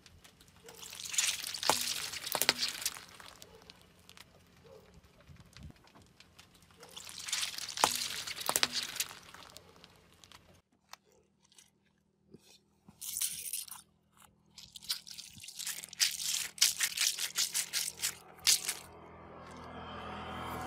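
Car tyre rolling over mesh stress balls filled with water beads on concrete, crushing and bursting them, in three bursts of crackling and sharp clicks.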